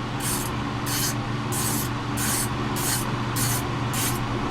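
Trigger spray bottle squirted repeatedly: about seven short hissing sprays at an even pace, over a steady low hum.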